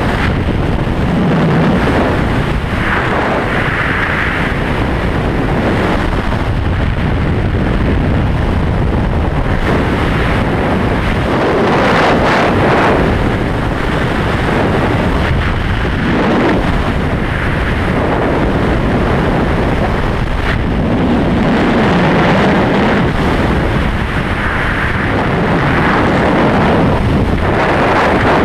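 Freefall airflow buffeting the camera's microphone: a loud, unbroken rush of wind that swells and eases every few seconds.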